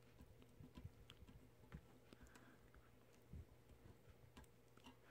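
Near silence: faint, scattered small ticks and rubbing as fingers press vinyl lettering and transfer tape down onto a painted metal plaque, over a low steady hum.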